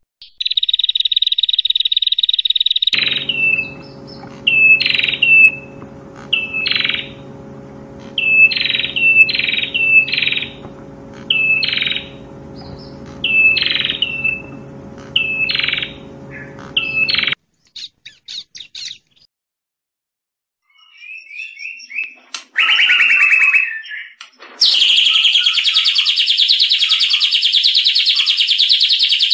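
Recorded songbird calls spliced one after another: a steady buzzy trill, then a string of short sharp calls about one a second over a low hum, a few scattered chirps, and a loud continuous chattering trill near the end.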